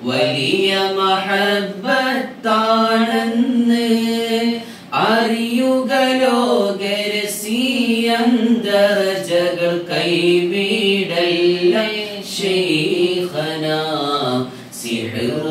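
A man singing unaccompanied in a chant-like devotional style, with long held, ornamented notes. The phrases break briefly for breath every few seconds.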